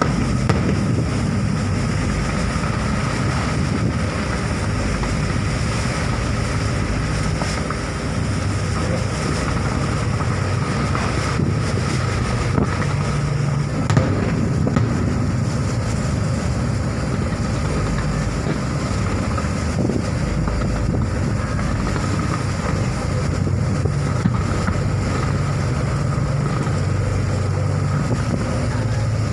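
Aerial fireworks bursting in a steady stream of booms and crackles, over a continuous low rumble, with a sharper bang about 14 seconds in.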